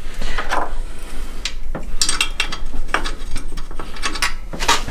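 Irregular metallic clinks and clicks of hand tools and metal parts as a bolt is worked on in a car's engine bay.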